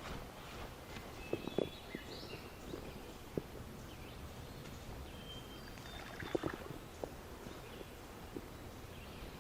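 Outdoor ambience with a steady low background noise, a few short high chirps typical of small birds, and scattered light knocks and clicks, the clearest about a second and a half in and again past six seconds.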